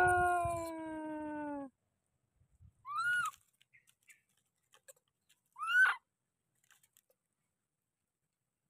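Baby macaque calling: two short high squeals, each rising and then falling in pitch, about three and six seconds in. A long drawn-out note sliding slowly down in pitch comes before them, at the start.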